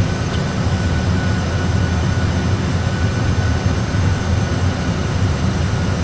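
Steady low rumble of Airbus A320 flight-deck noise, engines and airflow as reproduced in a training simulator, with the engines at approach thrust and a faint steady high whine above it.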